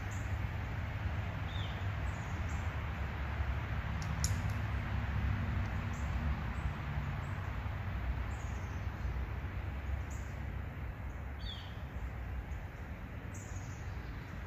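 Steady outdoor background noise with a low rumble, and a few short, high, falling chirps from birds scattered through. A single sharp click about four seconds in.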